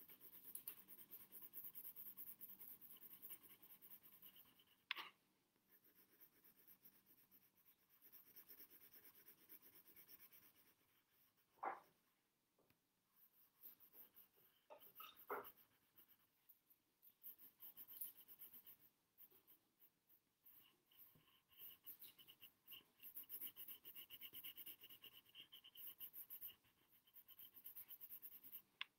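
Faint pencil shading on drawing paper: stretches of rapid, soft scratching strokes with short pauses between them, and a few light knocks.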